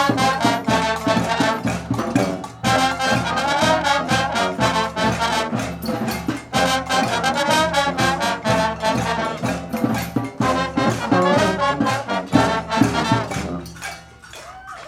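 Music led by brass instruments, trumpet and trombone, over a steady beat, dying away about a second before the end.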